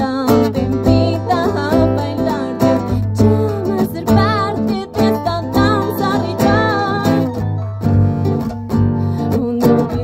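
Live acoustic band playing an instrumental passage: strummed acoustic guitar and electric guitar over a steady cajón beat, with a wavering lead melody line above.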